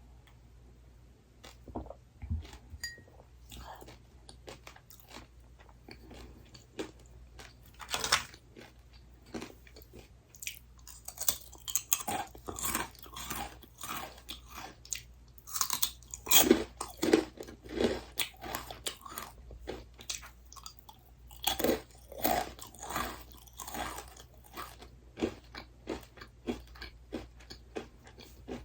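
Crunchy bites and chewing of dry, crisp snack food. The crunches are sparse at first, then come thick and fast from about ten seconds in.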